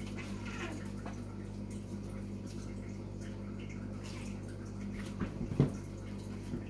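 A poodle and a cat playing on a laminate floor: faint rustling and light knocks over a low steady hum, with a few sharper knocks about five seconds in, the loudest just after.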